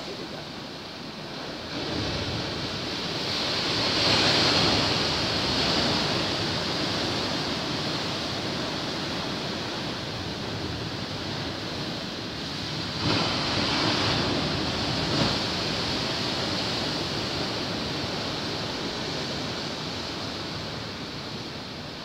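Heavy storm surf breaking against a rocky seawall: continuous rushing water noise that swells into louder surges about four seconds in and again around thirteen to fifteen seconds in as big waves break.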